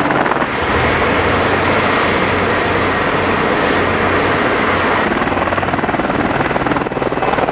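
AH-64A Apache attack helicopter running loud and steady: the rapid, even beat of the rotor blades over the whine of its twin turbine engines.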